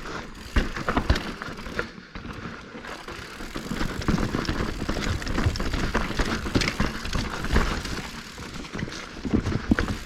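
Mountain bike rolling along a dirt singletrack trail: tyres crunching over dirt and rocks, with irregular clatter and knocks from the bike, louder from about four seconds in.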